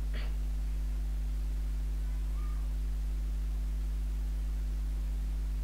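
Steady low electrical mains hum, with a faint brief tick just after the start.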